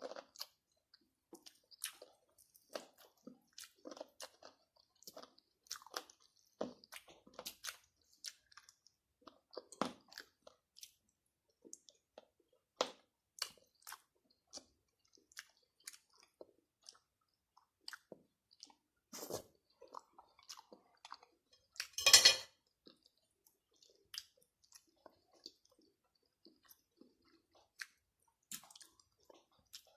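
Close-up chewing and crunching of crispy fried chicken, eaten by hand: frequent short, sharp crunches, with one louder, longer crunch about two-thirds of the way through.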